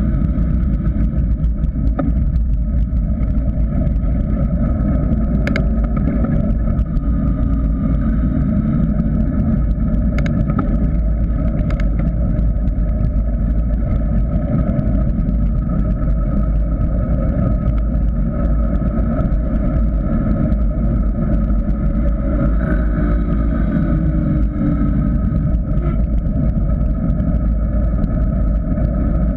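Steady wind noise over a GoPro Hero 3 mounted on a mountain bike descending fast on a paved road, mixed with the rumble of the tyres on asphalt. A few faint clicks come through, and the level holds the same throughout.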